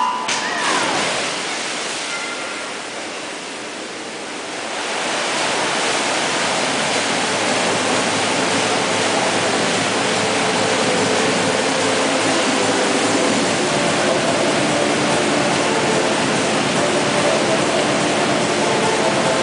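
Swimmers racing butterfly in an indoor pool. The dive entries splash right at the start, then it goes quieter while they are underwater. About four to five seconds in, a steady, echoing roar of splashing swells up and holds.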